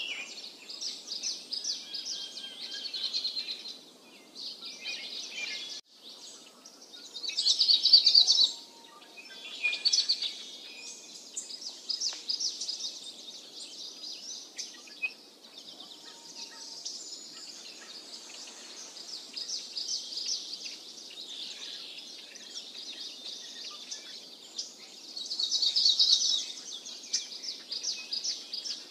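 Yellow-eyed babbler nestlings begging at the nest: high, rapid chirping trills in bursts, loudest about eight seconds in and again near the end, over a faint steady outdoor hiss.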